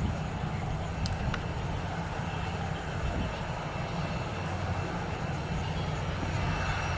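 Steady low rumble of jet aircraft engines at an airport, with two faint ticks about a second in.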